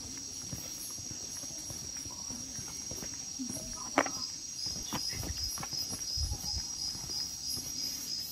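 Insects trilling in a steady high drone, joined about halfway in by a chirp repeating about three times a second. Footsteps on pavement and a single sharp click about four seconds in.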